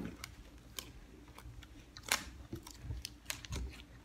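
A person chewing a crunchy snack, with irregular small crunches and crackles, the sharpest about two seconds in.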